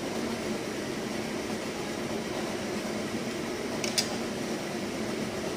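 Steady whirring room noise like a fan. About four seconds in comes a single sharp click of chopsticks knocking on a dish.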